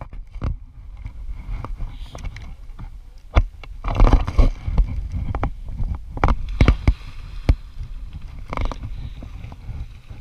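Water splashing and sloshing as a person wades into a pond, among close knocks and rubbing noises.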